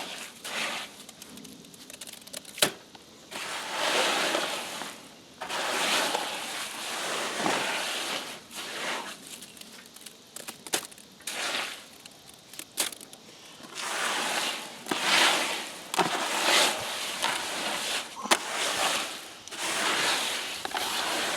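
Wet concrete being mixed by hand, a tool scraping and churning through the stiff mix in repeated strokes about every second or two, with occasional sharp knocks of the tool against its container.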